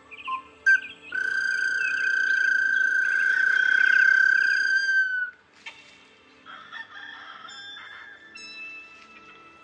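Ocarina playing: a few short notes, then one long, loud held high note lasting about four seconds, followed by softer separate notes.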